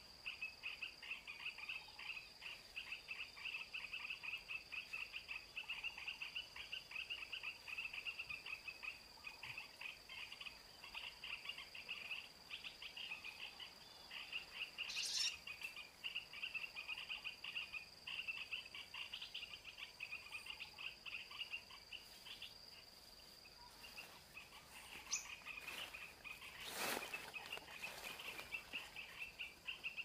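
Tropical insect chorus: a steady high-pitched whine over a dense, rapid chirping. Near the end comes a brief rustle lasting about a second.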